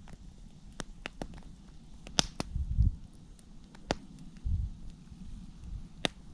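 Dry wood snapping and popping: about eight sharp cracks at irregular intervals, the loudest a little over two seconds in and again near the end, with a few low dull thuds between them.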